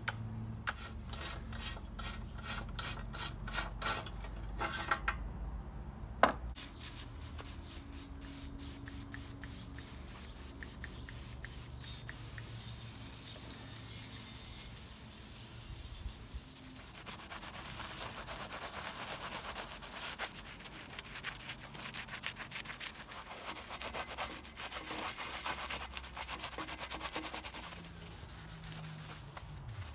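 Hand-cleaning of a steel bicycle frame with degreaser. A run of sharp clicks in the first dozen seconds and a hiss of spray a little before the middle give way to steady scratchy scrubbing of a brush on the frame tubes.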